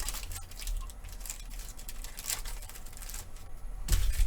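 Trading cards being handled and slid against one another, with scattered light flicks and rustles. A dull thump comes near the end.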